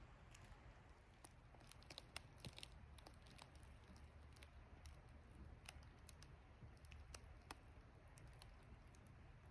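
Near silence: a faint low rumble with scattered faint clicks and ticks at irregular intervals.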